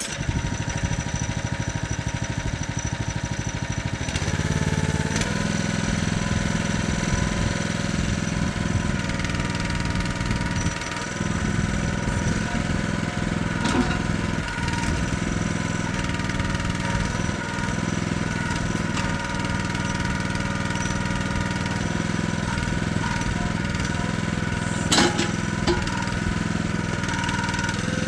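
Small engine of a Jansen mini excavator starting up and running steadily, with a couple of short metallic knocks along the way.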